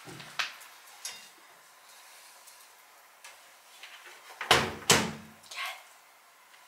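Dark laundry being loaded into a front-loading washing machine: a few light clicks in the first second, then two loud knocks against the machine about four and a half seconds in and a softer one just after.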